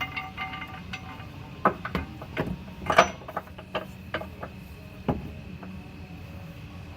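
Irregular light metal clinks and knocks as a steel bolt is pushed up through a suspension bar and into its mounting hole under a car and fails to start threading by hand. The loudest knock comes about three seconds in.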